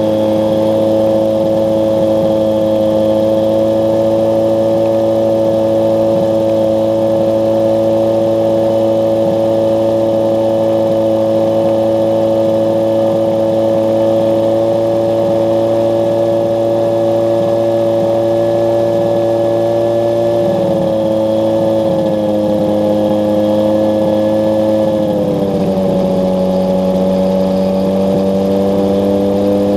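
North Wing Maverick 2 ultralight trike's rear-mounted engine and pusher propeller running steadily on the ground. The engine note drops slightly about 21 seconds in, drops again about 25 seconds in, then slowly creeps back up.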